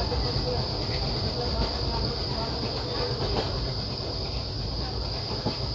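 Passenger train running on the track with a steady low rumble, over a continuous high-pitched drone of insects.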